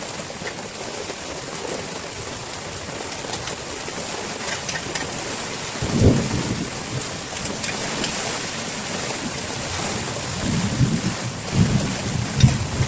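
Heavy rain falling steadily, with low rumbles of thunder about halfway through and a few more near the end.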